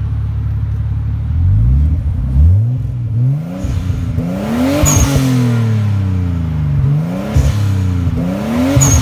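Nissan R32 Skyline GTS-T's turbocharged RB20DET straight-six idling and being revved several times, the pitch climbing and falling back each time, with a short high chirp at the top of two of the revs. The exhaust still has its stock downpipe and catalytic converter, before a test pipe goes in.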